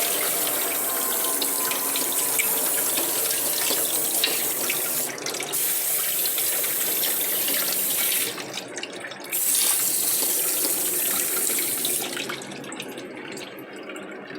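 A loud, steady hissing spray, cut off briefly twice and dying down near the end.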